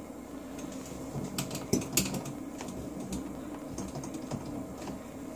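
Light, irregular clicks and taps of small metal hardware being handled by hand at a shelf bracket as tiny screws are fitted, with a few sharper clicks about one and a half to two seconds in.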